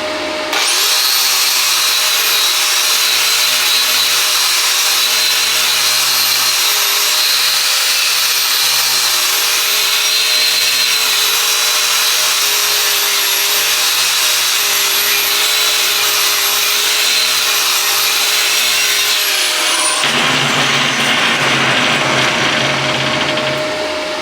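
Stick-welding arc crackling and hissing steadily as an electrode burns on a steel plate. It strikes about half a second in and stops abruptly near the end, when the arc is broken.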